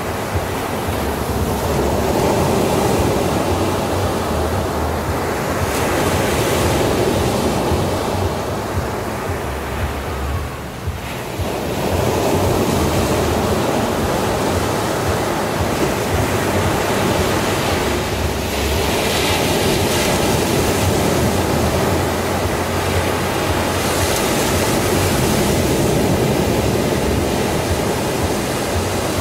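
Ocean surf washing onto a sandy beach, a steady rushing hiss that swells and eases as waves break, with a brief lull about eleven seconds in.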